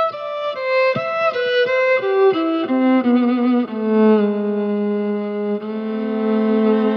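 Violin playing a descending run of short notes that steps downward, then settling into long held low notes with slight vibrato.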